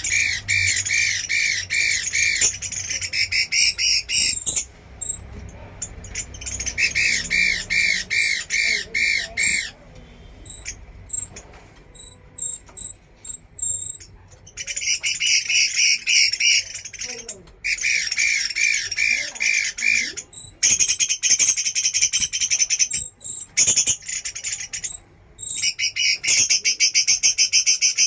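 Chinese hwamei (bạch mi) singing: loud, rapid runs of repeated whistled notes in bursts of a few seconds, with a sparser stretch of short notes in between.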